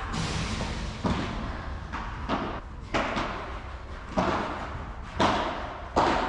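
Padel rally: the ball struck by solid paddle rackets and bouncing on the court, a sharp hit about once a second, each echoing briefly in the large hall.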